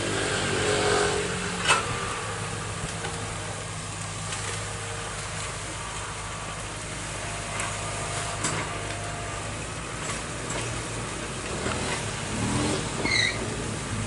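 Excavator's diesel engine running at a steady hum, with a few sharp knocks, the loudest about two seconds in.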